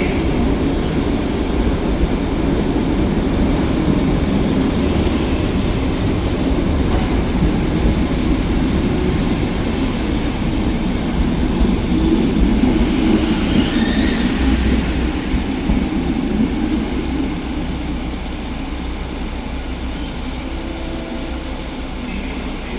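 Train moving along the station tracks, a steady heavy rumble of wheels on rail that slowly fades, with a brief higher wheel squeal about thirteen seconds in.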